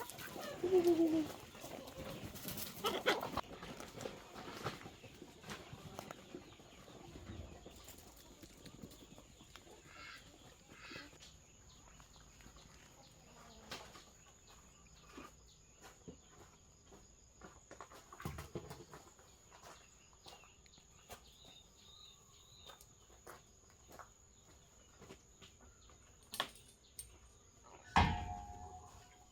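Domestic chickens clucking now and then, with scattered sharp taps and small knocks between the calls; a louder call comes near the end.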